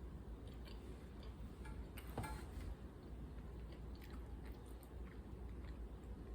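A person chewing food, with scattered small mouth clicks and one sharper click about two seconds in.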